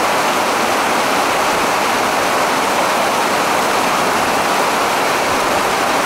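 Waterfall water rushing steadily down a smooth, sloping rock slab: an even, unbroken rush of white water.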